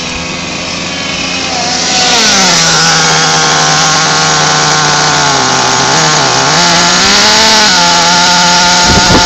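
Small nitro engine of a Losi LST XXL RC monster truck, running at a high, buzzing pitch while it is being tuned. Quieter for the first couple of seconds, then loud and close; the pitch sags about halfway through, then climbs back and holds steady near the end.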